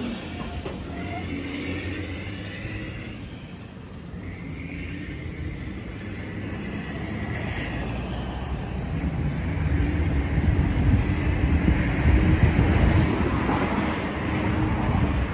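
City street traffic noise: a steady low rumble that swells as a vehicle passes about two-thirds of the way through, then eases slightly.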